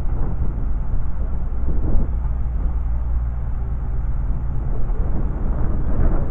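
Wind buffeting the microphone over the low rumble of an approaching CrossCountry Voyager diesel train, which grows louder near the end as the train draws closer.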